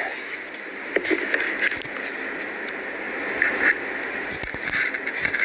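Handling noise: scattered clicks and scrapes over a steady rustling hiss as objects are moved about by hand.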